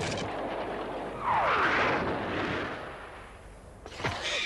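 Fight-scene sound effects: a loud noisy rush with a falling tone about a second in, fading away, then a sharp hit near the end.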